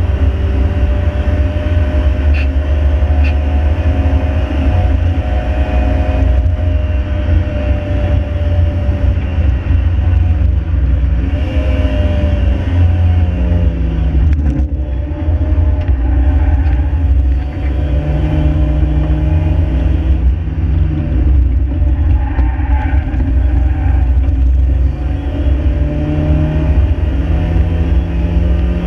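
Mk5 Ford Fiesta's 1.7 Puma four-cylinder engine driven hard: the engine note climbs and drops with throttle and gear changes, over a loud, steady low rumble of road and wind noise.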